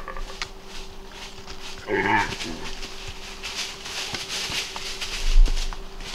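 A mortally hit whitetail doe bleating once, briefly, about two seconds in as it goes down. A low thump follows near the end.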